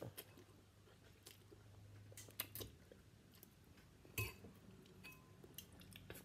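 Faint chewing and slurping of noodles, with scattered short clicks and smacks.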